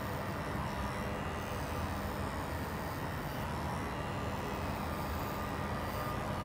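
Ceenwes low-noise cordless pet clippers running with a steady hum as they shear through a dog's thick curly coat.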